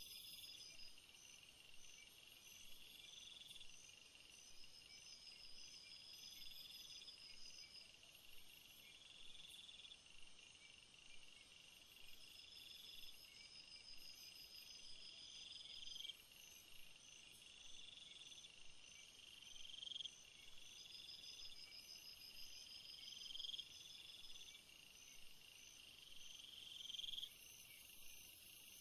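Faint chorus of singing insects: a steady high trill with pulsing chirps above it, and a buzzing call that swells and cuts off sharply about every three seconds.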